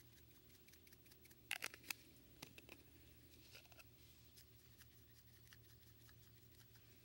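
Faint scattered clicks and short rattles of salt and pepper shakers being shaken over a cast-iron Dutch oven, a few sharper ones between about one and a half and three seconds in; otherwise near silence.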